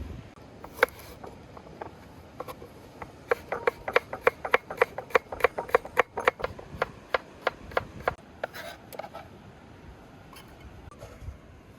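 Chopping on a wooden board: a steady run of about three sharp strokes a second for about five seconds, with a few scattered knocks before and after.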